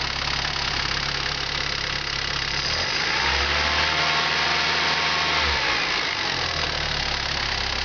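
VW Polo 86C's 1.3-litre four-cylinder petrol engine idling with a clatter. It is revved briefly about three seconds in and settles back to idle a few seconds later. The owner suspects the hydraulic lifters or the pistons; the noise is worst when the engine is cold.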